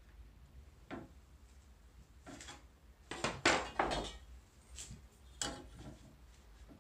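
A steel ruler and a metal combination square handled against a pine board on the workbench: several knocks and metallic clatters, the loudest cluster about halfway through as the ruler is lifted away and the square set down.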